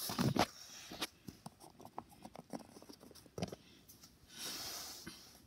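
Small plastic toy figures being handled and set down on a plastic playset: a soft knock at the start, then scattered light clicks and taps, with a brief soft rustle near the end.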